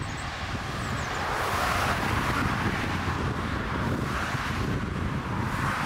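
Jet engines of a narrowbody twin-engine airliner on short final, a rushing noise that grows louder about a second and a half in as the aircraft nears the runway, under gusty wind buffeting the microphone.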